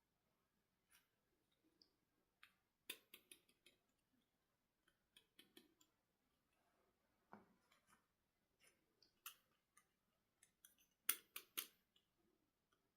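Quiet scattered light clicks and taps in small clusters, the loudest group near the end, like small objects being handled.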